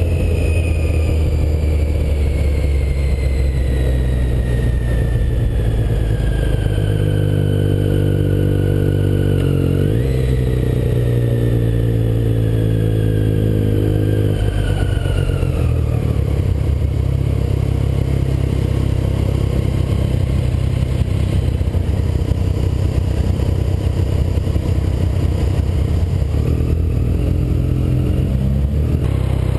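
Motorcycle riding in city traffic, heard from a helmet-mounted camera: steady loud engine noise, with a high whine that slowly falls in pitch, jumps back up about ten seconds in, then falls again and fades out by about sixteen seconds.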